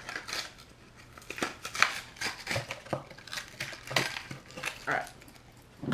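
Plastic blister packaging of a fishing crankbait being pried and torn open by hand: irregular crackling with sharp clicks.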